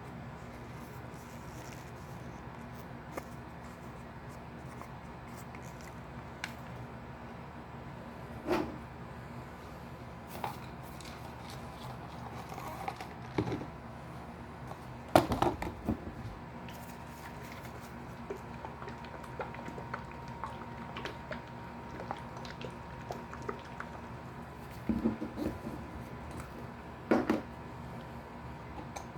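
Scattered light knocks and clicks of small objects being handled and set down, over a steady hum; the loudest knock comes about halfway through.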